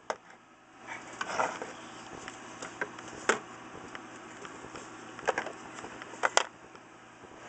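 A wooden-cased clock with a metal base plate being handled and turned over: a few scattered light knocks and clicks, with a soft rustle about a second in.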